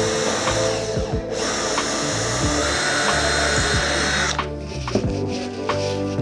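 Power drill running in a short burst and then a longer run of about three seconds, with a high whine that dips slightly just before it cuts off sharply, over background music with a steady beat.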